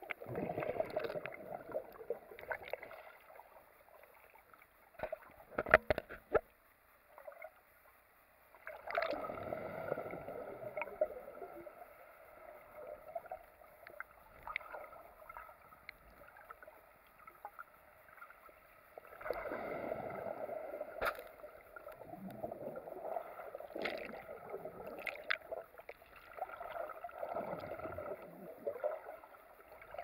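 Muffled underwater sound of churning surf heard through a camera's waterproof housing, swelling and fading in waves, with a cluster of sharp knocks about six seconds in.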